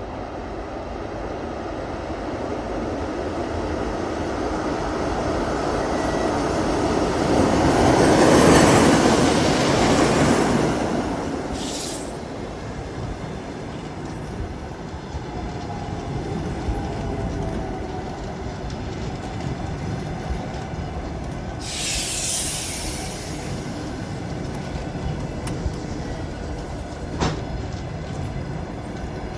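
EP2K electric locomotive drawing a passenger train past on arrival: the rolling noise swells to its loudest about eight to ten seconds in as the locomotive passes, then the coaches roll by more steadily. There are two brief hissing bursts, about ten seconds apart, and a sharp click near the end.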